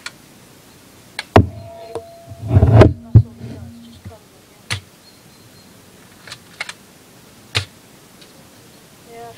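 Spring-powered M4A1 BB rifle being cocked and shot: a handful of sharp snaps and clicks spread a second or more apart, with a longer, louder clatter about two and a half seconds in.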